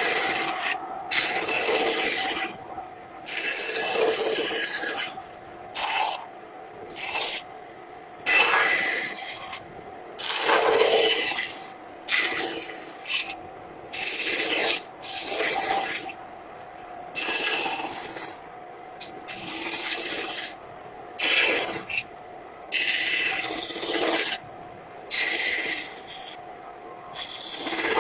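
A hand tool rasping and scraping across wood in repeated, irregular strokes, each lasting up to about a second and a half with short pauses between.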